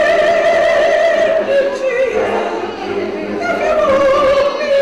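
Gospel choir singing, holding a long note with vibrato, then a second long note a little past halfway through.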